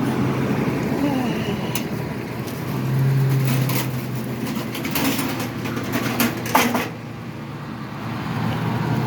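Truck engine idling steadily on a freshly charged battery, with a series of sharp clicks and knocks as the battery charger is unhooked and unplugged.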